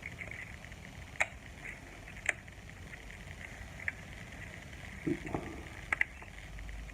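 Small clicks and knocks from handling the dimmer switch and its wiring: a few sharp clicks spread out, a duller knock about five seconds in, and a quick double click near the end, over a faint steady background hiss.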